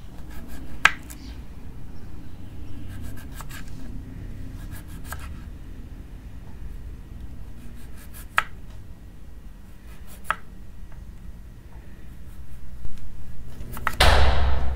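Kitchen knife knocking on a wooden cutting board while vegetables are sliced: a few sharp, widely spaced knocks with faint clicking and scraping between, over a low steady hum. Near the end comes a loud, short rushing burst.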